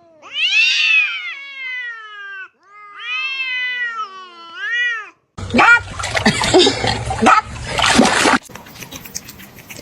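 A cat gives two long, drawn-out meows, each rising and then falling in pitch, over the first five seconds. After them comes a few seconds of noisy rustling with scattered knocks.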